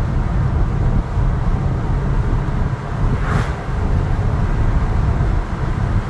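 Inside the cab of a 1966 Ford F100 pickup at highway cruise: its 302 V8 running steadily under a low, loud drone of engine, tyre and wind noise. A brief rushing hiss rises over it about three and a half seconds in.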